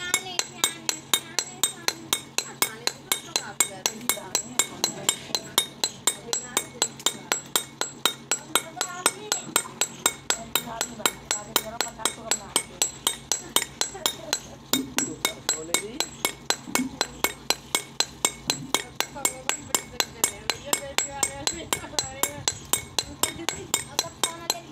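Hammer striking a steel chisel on a sil grinding stone, pecking fresh pits into its worn face to roughen it for grinding again: a steady, rapid metallic tapping on stone, about three to four strikes a second.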